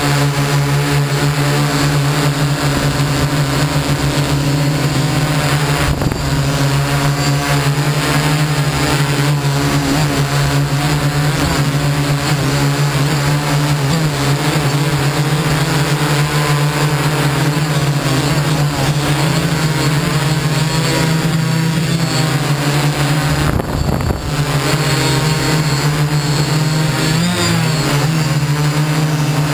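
Multirotor drone's electric motors and propellers running steadily in flight: a loud, even hum heard from the camera on board, with one brief dip late on.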